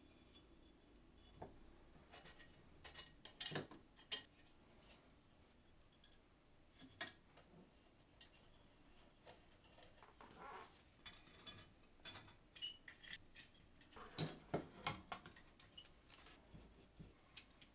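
Faint scattered clicks, taps and light knocks of small metal parts as a laser engraver's aluminium extrusion frame and bracket are handled and fitted together, louder in short clusters a few seconds in and again near the end.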